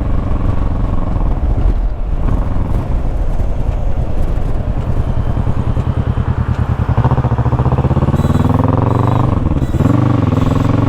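Motorcycle engine running under way, with road and wind noise. Its note firms up about two-thirds of the way through, then drops and picks up again near the end.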